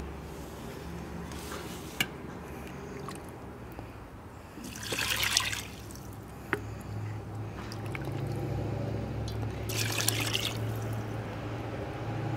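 Water poured from a jug into a stainless steel pot holding raw meat, in two splashing pours, the first about five seconds in and the second about ten seconds in. A light click comes about two seconds in.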